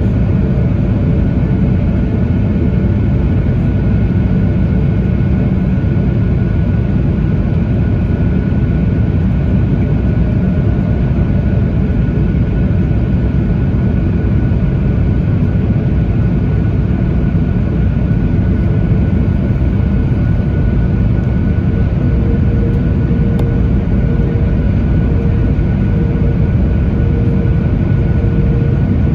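Steady cabin noise inside a Boeing 737-900ER: a loud, even rumble of jet engines and airflow, with a faint steady whine on top.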